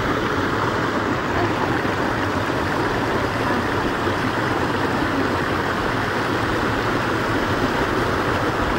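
Stream water rushing steadily over rocks in a small cascade, an even, unbroken rush.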